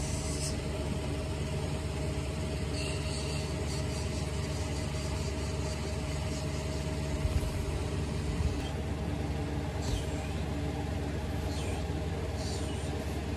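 A steady mechanical hum holds at one level throughout, with a few faint rustles and scratches from a kitten wrestling with a hand on a bedsheet.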